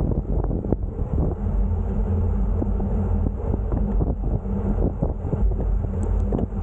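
Wind buffeting the microphone as a low, steady rumble, with many small clicks and rattles scattered through it.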